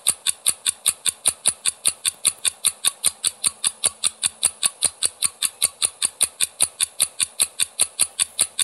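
Quiz countdown-timer sound effect: fast, even ticking, about five ticks a second.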